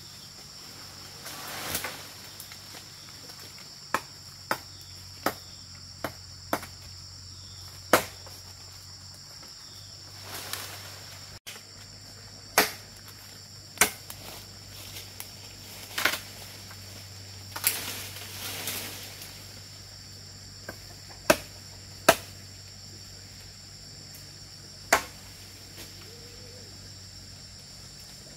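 Insects droning steadily at two high pitches, with about a dozen sharp knocks at irregular intervals, a second to several seconds apart.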